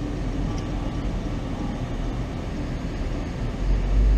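Road and engine noise inside the cabin of a moving 2018 Subaru WRX, a steady rush with a low rumble that grows louder near the end.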